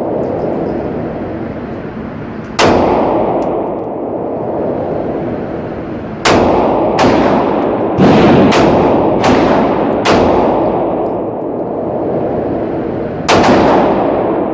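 Gunshots on a range: eight single shots at an uneven pace, one alone, then a quick string of six, then one more near the end, each with a long echoing ring after it.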